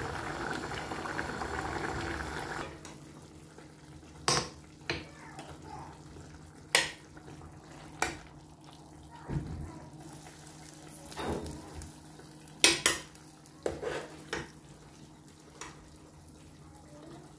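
Utensil clinking and knocking against a stainless steel cooking pot and a ceramic bowl: about a dozen sharp, separate knocks, irregularly spaced and including a quick double knock past the middle. At the start a steady hiss runs, then cuts off suddenly about two and a half seconds in.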